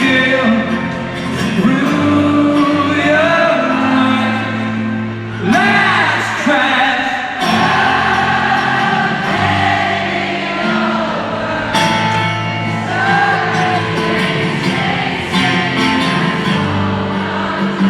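Live rock band music: a singer over sustained keyboard chords, amplified through an arena's sound system.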